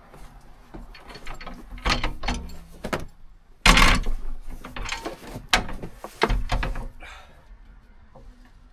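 Passenger seat being fitted back onto a swivel base in a van: a run of clunks, knocks and rattles, the loudest about four seconds in.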